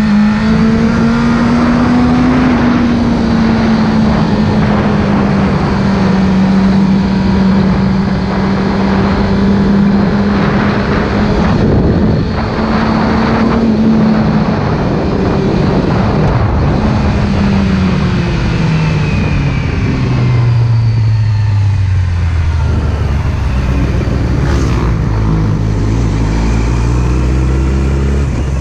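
Sport motorcycle engine heard from onboard with wind rush on the microphone, running at a steady high pitch with two brief dips, then dropping in steps to a low, slow beat near the end as the bike slows to walking pace.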